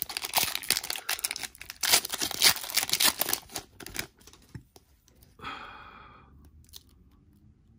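Wrapper of a trading-card pack being torn open and crinkled, a dense run of crackles and rustles for about four seconds, then a short sigh.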